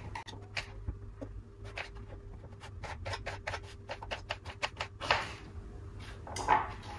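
Kitchen knife chopping a courgette on a plastic chopping board: a run of sharp taps, speeding up to about six a second in the middle. Two brief, louder rushes of noise come near the end.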